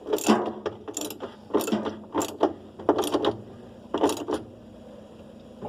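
Ratchet wrench clicking in short strokes, about six in a row, as screws are fastened while a washing machine is put back together; the strokes stop about four and a half seconds in.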